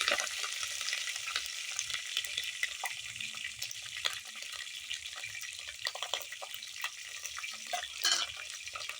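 Garlic and green pepper frying in hot oil with mustard seeds: a steady sizzle with many small crackles and pops, a sharper crackle near the end.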